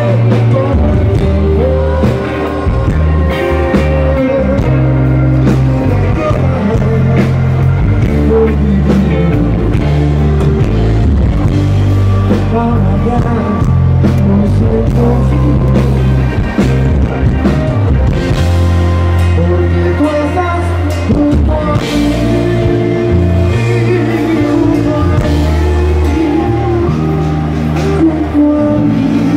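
Live rock band playing loud through the stage PA: a singer over electric guitars, heavy bass notes and drums.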